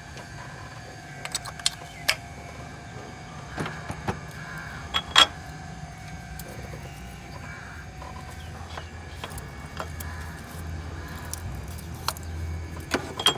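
Metal hand tools clinking and tapping, in scattered sharp knocks with the loudest about five seconds in, over a steady low hum.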